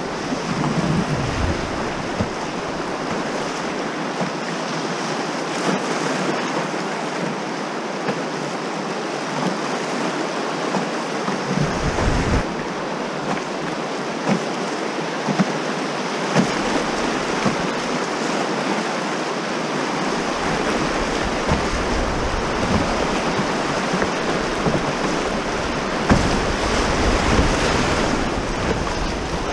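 Fast river water rushing and splashing through riffles around a canoe's hull, with gusts of wind buffeting the microphone.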